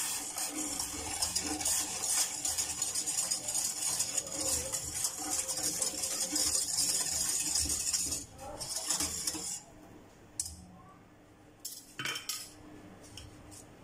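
A wire balloon whisk rapidly scraping and clinking against the inside of a stainless steel saucepan, stirring sugar into heating water. It stops after about eight to nine seconds, and a couple of single light clinks follow near the end.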